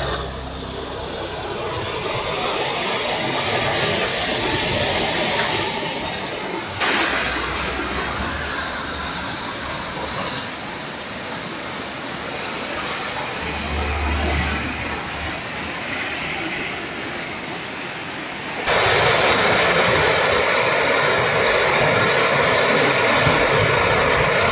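A river in flood after a hailstorm, its brown floodwater rushing and churning loudly in rapids. About three quarters of the way through the rush becomes suddenly louder and hissier, as the torrent pours through the openings under a low concrete bridge.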